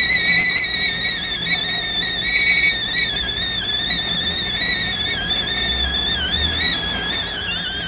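Music from the film's soundtrack: one high, sustained instrumental line that wavers gently in pitch, with no beat.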